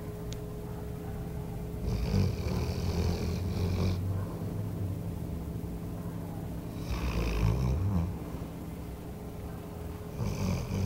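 Small dog snoring heavily in her sleep: three long, rasping snores about four seconds apart, which the owner takes for a nightmare.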